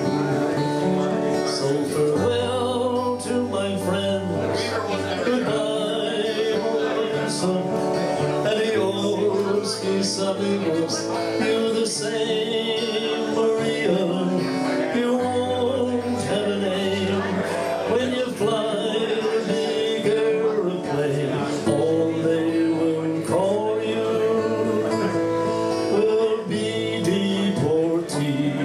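A man singing a slow folk ballad to a strummed acoustic guitar, performed live.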